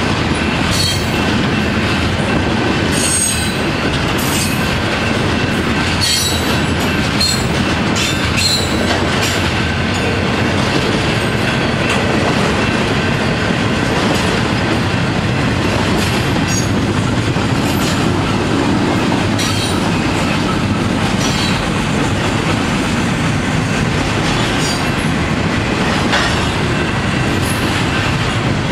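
Double-stack intermodal freight cars rolling past at steady speed: a continuous rumble of steel wheels on rail, with short high-pitched wheel squeals now and then.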